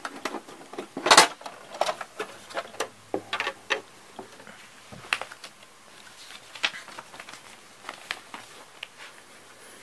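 Hard plastic Playmobil building pieces clicking and knocking as they are handled and fitted together: one loud knock about a second in, then scattered lighter clicks that thin out toward the end.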